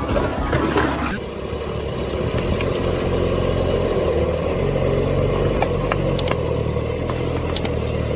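A heavy engine running steadily, with a few faint clicks.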